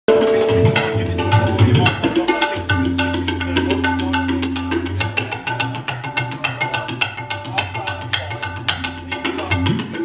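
Tabla played in a fast, continuous run of sharp strokes on the close-miked right-hand drum, with deep held bass notes and a few upward-bending bass glides underneath.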